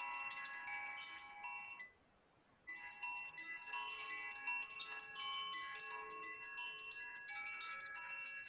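Wind chimes tinkling, many clear, high ringing tones overlapping one another. The sound cuts out briefly about two seconds in, then resumes.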